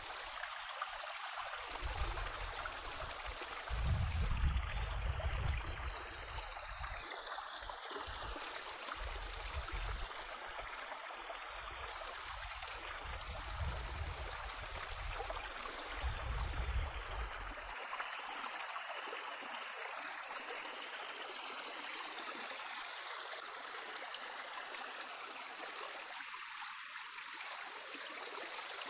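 Shallow stream rushing steadily over rocks, with an uneven low rumble through the first two-thirds that then stops.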